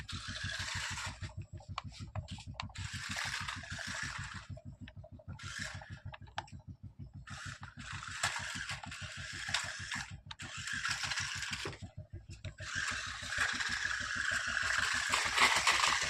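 Toy remote-control car's small electric motor and plastic gearbox whirring in short spells of one to three seconds, about six times, as it is driven in bursts. A steady low pulsing, about five beats a second, runs underneath.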